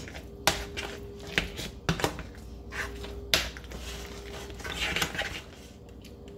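A cooking utensil clinking and scraping against a pot while mashed potatoes are stirred, with several sharp clinks and a brief scrape about five seconds in.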